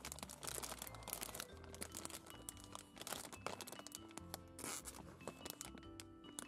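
Plastic snack bag crinkling and crackling as it is handled and turned over, over background music of held notes.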